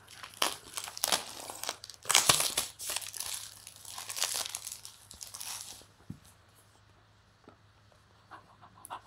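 Plastic shrink-wrap being torn off a phone box and crumpled in the hands: a run of sharp crinkling and tearing, loudest about two seconds in, that dies away about six seconds in, leaving only a few faint handling clicks.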